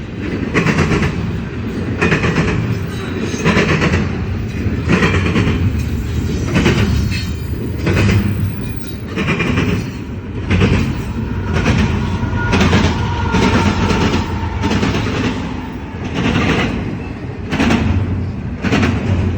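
CSX freight train's cars rolling past, with a steady low rumble and a regular clacking of wheels over rail joints, roughly one clack a second. A faint thin whine comes in about halfway through.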